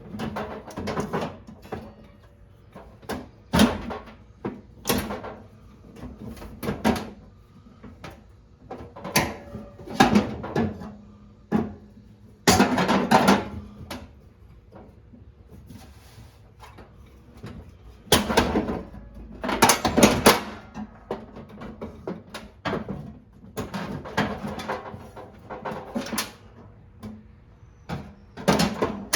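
Irregular knocks, clicks and rattles of parts and tools being handled in hands-on repair work on a lawn tractor's headlight assembly, some coming in quick clusters.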